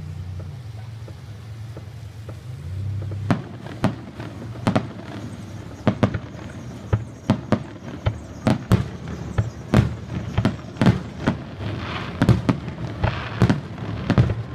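Fireworks aerial shells going off: a series of sharp bangs that begin about three seconds in and come more and more often, roughly one to two a second, with a patch of crackle near the end.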